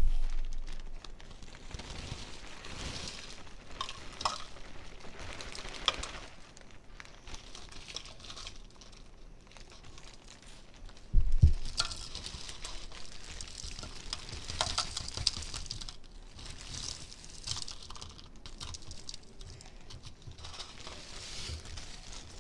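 Plastic zip-top bag rustling and crinkling as crushed Oreo crumbs are shaken out of it into plastic cups, with light scattered taps and pattering. A dull thump at the very start and another about eleven seconds in.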